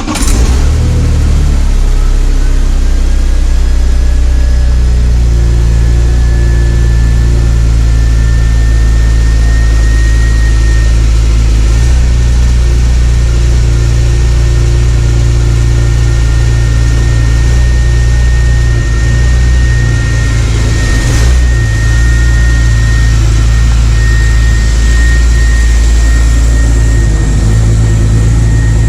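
A BMW E46's engine catches and runs at a steady, loud idle. A thin whine above it climbs slightly in pitch over the first ten seconds, then holds.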